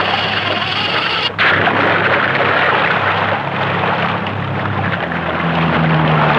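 Outboard motor running under a loud rush of wind and water; the engine note rises about five seconds in. The sound cuts out for an instant about a second in.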